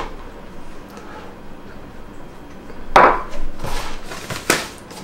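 Handling of a white cardboard box and its insert: a few knocks and scrapes start about three seconds in, with a sharp click near the end.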